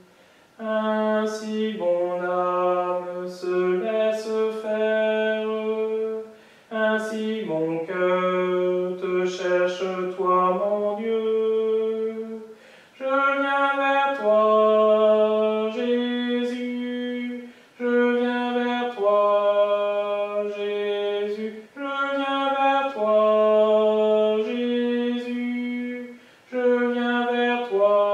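A solo male tenor voice sings the tenor line of a French Catholic hymn in French, in long held notes moving by step, with short breaths between phrases every four to six seconds.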